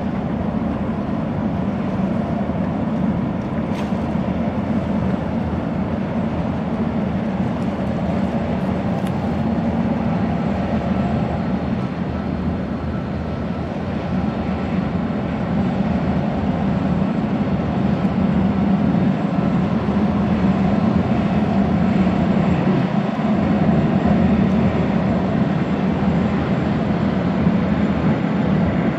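Boeing Jetfoil 929-100 hydrofoil ferry's gas turbines and waterjets running at speed as it rises onto its foils, a steady low drone mixed with rushing spray, growing a little louder in the second half.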